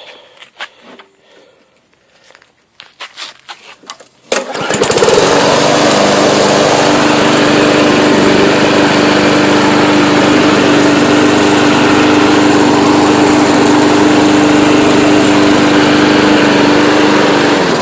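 Briggs & Stratton 550 series 158 cc engine on a 21-inch push mower, already warm, catching suddenly about four seconds in after a few light clicks. It then runs loud and steady at a constant speed, and dies away right at the end.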